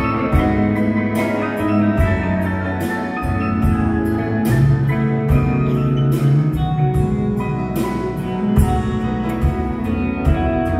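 Live band playing an instrumental passage: grand piano with drums, heard from the audience in a theatre.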